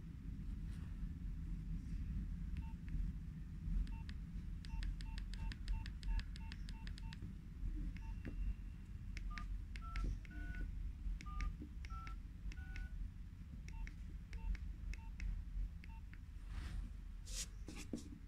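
Nokia 3100 keypad tones as its keys are pressed: a quick run of short single-pitch key beeps, then six dual-tone DTMF tones as the digits 1 to 6 are typed one after another, then a few more single key beeps. Near the end there are short clicks of the phone being handled and turned over.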